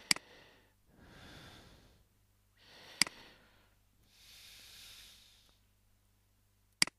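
A man breathing close to the microphone, four soft breaths in and out. Three sharp computer-mouse clicks come just after the start, about three seconds in and near the end.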